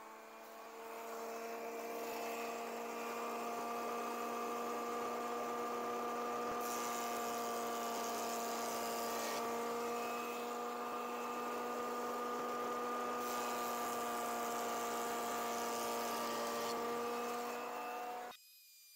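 Porter-Cable benchtop jointer running, its motor giving a steady whine that builds up over the first couple of seconds, while wooden boards are fed across the cutterhead. The sound cuts off abruptly near the end.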